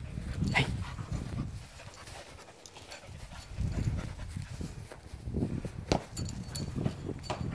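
Springer spaniel panting and snuffling as she plays with a soccer ball on grass, with a sharp thump of the ball being struck about six seconds in.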